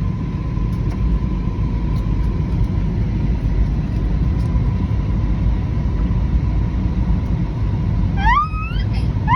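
Airliner cabin noise: a steady, loud low rumble with a faint steady whine. Near the end come two short rising squeals.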